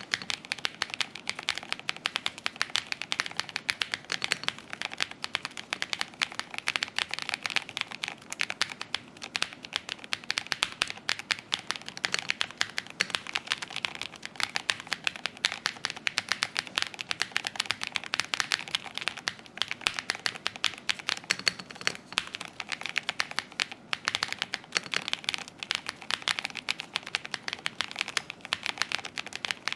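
Typing on a mechanical keyboard fitted with Gateron Lunar Probe linear switches: a fast, continuous run of keystrokes, the clacks of the keys bottoming out.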